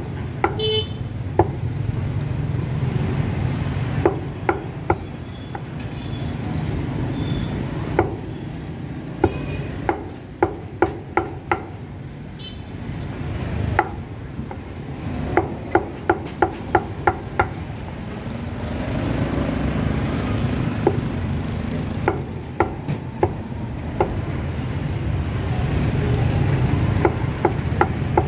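Busy street-market ambience: a steady low rumble of passing vehicle engines, broken by several bursts of sharp rapid knocks, about four a second.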